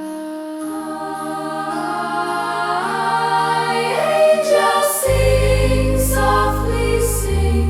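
Wordless choir singing held, gliding notes over sustained backing music, with deep bass notes coming in about five seconds in.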